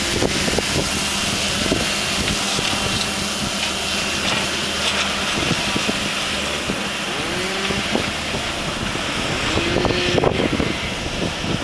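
Wind buffeting the microphone, with the faint whine of a small electric tricopter drone's motors and propellers flying overhead.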